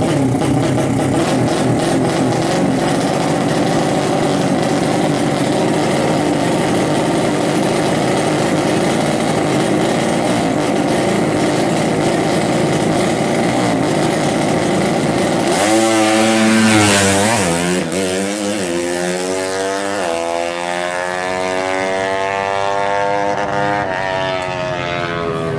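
Drag-racing underbone motorcycle engine held at high revs on the start line, a steady drone. About 15 seconds in it launches, its pitch climbing and dropping back at each of several gear changes as it pulls away down the strip.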